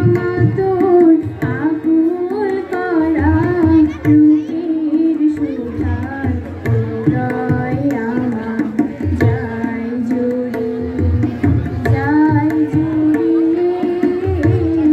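A woman singing a melody to her own harmonium accompaniment, the harmonium holding steady chords under her voice, with a tabla player keeping a rhythm of low and high drum strokes.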